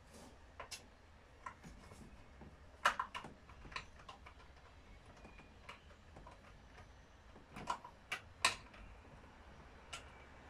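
About a dozen irregular metallic clicks and taps as a hand tool works on the bar and chain fittings of an Alpina ACS 46 chainsaw. The sharpest knocks come about three seconds in and again around eight and a half seconds.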